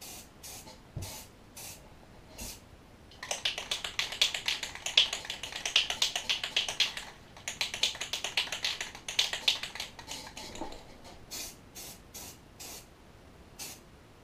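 Rust-Oleum camouflage spray paint can: short puffs of spray, about three a second, then the can shaken hard for about seven seconds with its mixing ball rattling fast, a brief break near the middle, then short puffs of spray again.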